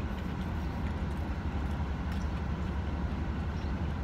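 Steady low hum of a car at rest, heard inside the cabin, with faint soft chewing of a burrito.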